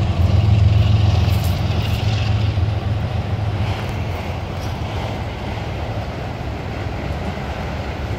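Freight train of CSX autorack cars rolling past. A deep diesel engine drone is loudest at first and fades over the first few seconds, leaving the steady rumble and clatter of the cars' wheels on the rails.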